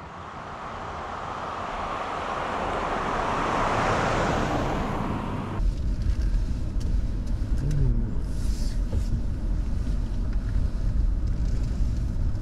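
Toyota Tacoma pickup approaching on a wet road, its tyre hiss swelling to a peak about four seconds in. After a cut about five and a half seconds in, a steady low rumble of the truck heard from inside the cab as it drives slowly.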